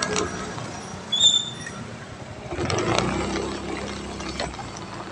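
Street traffic noise heard while riding, with a short high squeak about a second in and a swell of passing-vehicle noise around the middle.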